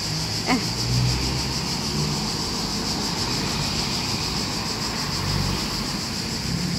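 Town road traffic: cars running past with a low, steady rumble, under a constant high hiss.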